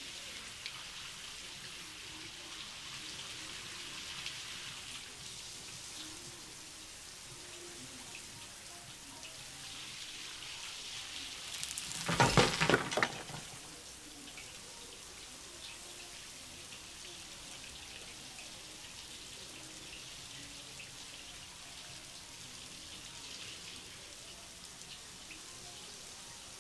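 Shower water falling and pattering steadily on a person washing, with a louder burst lasting about a second and a half some twelve seconds in.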